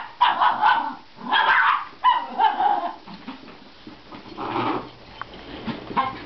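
Miniature schnauzer barking at a vacuum cleaner: three harsh barks in quick succession, then a pause of about a second and a half before a fourth.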